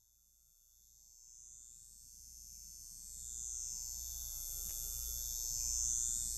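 Faint fade-in intro of a home-recorded song demo: a high-pitched ringing hiss that sweeps slowly up and down over a low hum. It swells from about a second in, before the band enters.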